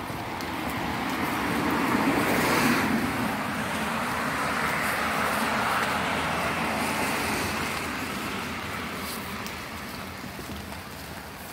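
Cars driving past on the street: tyre and engine noise swells to its loudest about two to three seconds in, a second swell comes around five to six seconds, and it fades toward the end.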